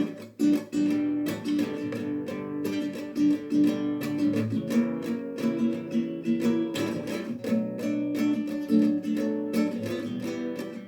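Instrumental music: acoustic guitar plucked and strummed in quick, dense notes, with no singing.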